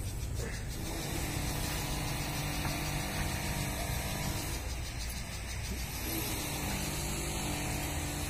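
A steady low mechanical hum, from a motor or engine running.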